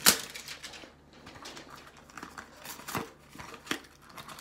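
Cardboard packaging of a baseball-card value box being torn open and handled: a sharp rip right at the start, then scattered rustles, crinkles of plastic wrap and small clicks.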